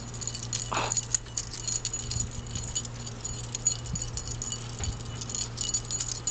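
Dog's collar tags jingling in quick, irregular clinks as its chest is scratched, with a few soft thumps from its hind foot on the wooden deck.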